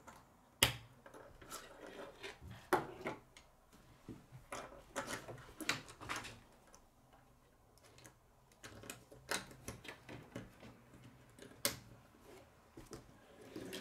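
K'nex plastic rods and connectors clicking and snapping together as they are handled, with small knocks against a wooden table: irregular sharp clicks a second or two apart, with a quieter stretch past the middle.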